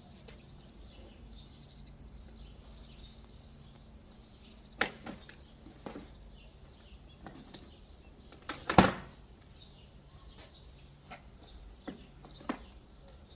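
Plastic grass catcher of a Makita ELM3320 electric lawn mower knocking and clunking as it is handled and lifted off the full mower: a few separate knocks, the loudest about nine seconds in. Faint bird chirps in the background.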